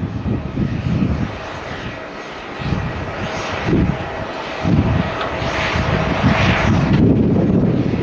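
Jet engines of a Boeing 737-800 airliner rolling along the runway: a rushing hiss with a faint steady whine that swells a couple of times, under irregular low gusts of wind buffeting the microphone.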